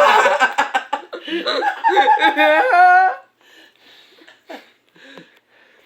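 A person laughing for about three seconds, then it goes much quieter, with only a few faint small sounds.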